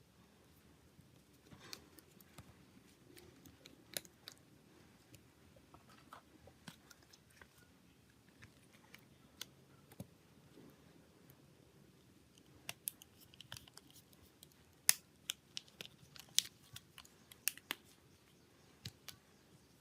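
Scattered small sharp clicks and taps of hard phone parts and hand tools being handled at close range, sparse at first and busier and louder about thirteen to eighteen seconds in.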